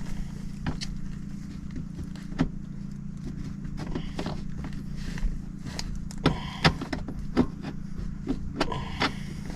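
Scattered sharp clicks and knocks, with brief scraping, from hand tools and metal parts being handled at the ductwork. They come thickest in the second half, over a steady low hum.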